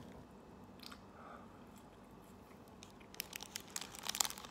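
Faint chewing, then a plastic food wrapper crinkling and crackling in the hands from about three seconds in.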